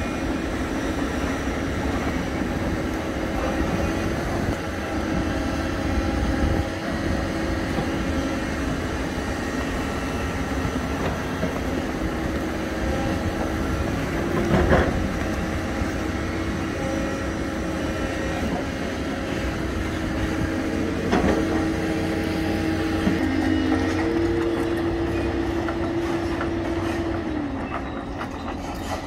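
Excavator diesel engine and hydraulics running steadily with a held whine, and two sharp knocks of rock or steel about halfway through and some six seconds later. The whine steps up and then drops away near the end.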